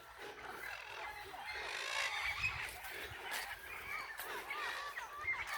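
A flock of parrots and parakeets calling: many short, overlapping squawks and chirps.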